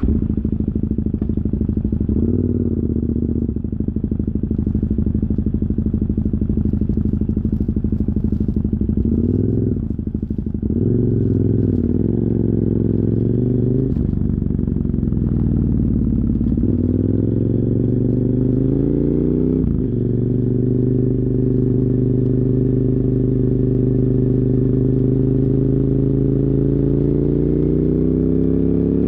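KTM 990 Super Duke R's V-twin engine with a dual Yoshimura carbon exhaust. It catches at the very start and idles with a couple of short throttle blips. It pulls away about ten seconds in, the revs rising and dropping through several upshifts, then settles into steady cruising with the revs slowly climbing near the end.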